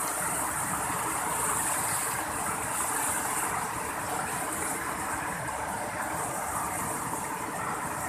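Steady rush of white water tumbling over a waterfall cascade and along a fast stream, an even hiss with no breaks.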